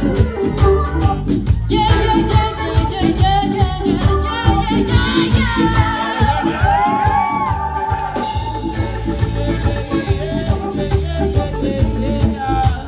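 Live reggae band playing: drum kit, electric and acoustic guitars and keyboard keeping a steady beat, with a woman singing lead.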